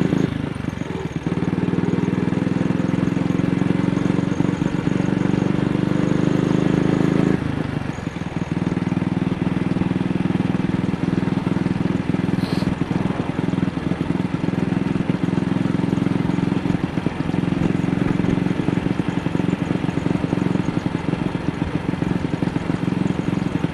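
AJS Model 8 motorcycle's single-cylinder engine running under way. Its note rises slowly, drops sharply about seven seconds in, then carries on broken by frequent brief stumbles: a misfire that shows on a very slight throttle opening.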